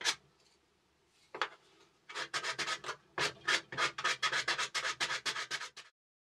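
Thin birch plywood strips being hand-sanded to clear burn marks and burrs: short rubbing strokes, a lone stroke about a second in, then a quick run of about four or five strokes a second that stops near the end.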